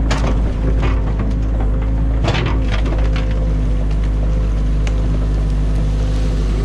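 Excavator's diesel engine running steadily with its hydraulics working, heard from the cab. The bucket crunches and snaps through waterlogged sticks and mud of a beaver dam, with sharp cracking right at the start and again about two seconds in.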